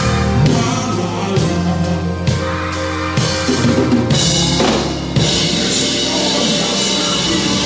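Drum kit played over recorded music with a sustained bass line: kick and snare hits, then from about four seconds in the cymbals crash and keep washing.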